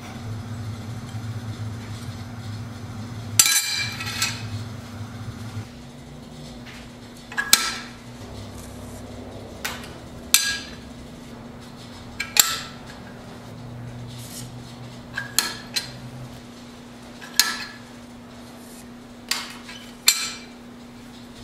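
Small 13-gauge steel pieces and a steel combination square being set down and shifted on a work surface: about ten sharp metallic clinks at uneven intervals, the first, a few seconds in, the loudest. A steady low hum runs underneath.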